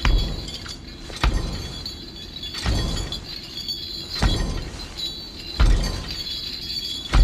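Slow, heavy footsteps of a shackled prisoner, each step a dull thud with the clank of iron ankle chains, six steps about a second and a half apart.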